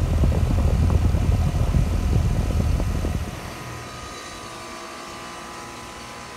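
A rough, fluctuating low rumble of air buffeting the microphone. About three seconds in it drops away, leaving a steady hum with faint steady tones.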